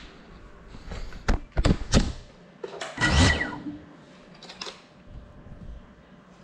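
Handling noise on the camera-carrying drone: several sharp knocks about a second in, then a louder thud and scrape around three seconds in as it is set down on a hard table top, and a couple of light clicks after.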